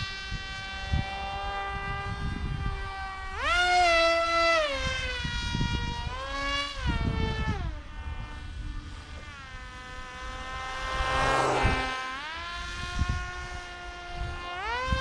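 Motor and propeller of a foam RC flying wing buzzing, the pitch stepping up and down several times as the throttle is opened and eased back.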